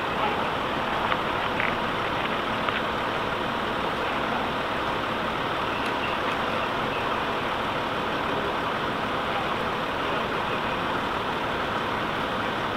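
Steady running noise of idling vehicles, with a few faint clicks in the first couple of seconds.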